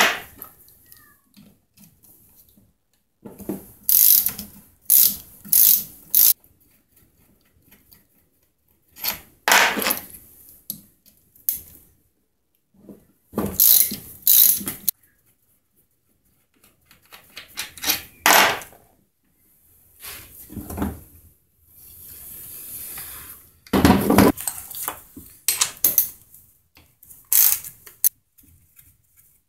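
Hand tools and metal parts of a chainsaw being taken apart: irregular bursts of clicking, rattling and scraping as screws are undone and covers and small parts are worked loose and set down on a wooden bench. A softer rushing sound lasts about two seconds a little past the middle.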